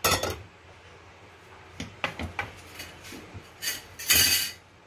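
A metal saucepan set down on a gas stove's burner grate with a clank, then a few light knocks, and a louder scraping clatter about four seconds in as the pan is shifted into place.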